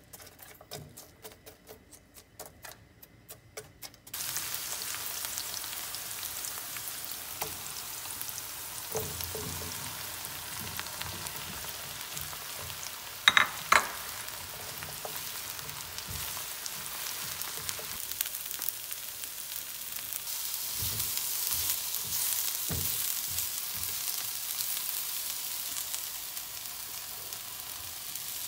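Green onions sizzling in oil in a nonstick frying pan, stirred with a silicone spatula. A few faint ticks come first, then a steady sizzle starts about four seconds in. About halfway there is a brief loud clatter as sliced eggplant goes into the pan, and the stir-frying sizzle continues, growing a little louder later on.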